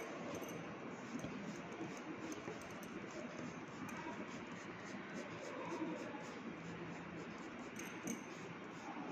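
Coloured pencil shading on paper: a continuous scratchy scribbling of quick back-and-forth strokes.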